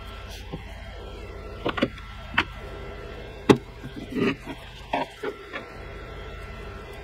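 A series of sharp clicks and knocks from shaving things being handled on a tabletop, a hand razor and an aerosol can of shaving foam picked up and set down, over a steady hum. The sharpest click comes about halfway; the rest are scattered over a few seconds.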